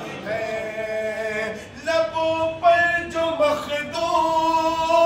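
A man singing a devotional Urdu kalaam unaccompanied, drawing out long held notes with small ornamental bends between them.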